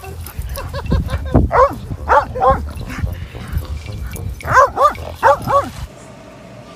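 A dog barking excitedly, about eight short barks in quick pairs and groups, over a low rumble; the barking stops about six seconds in.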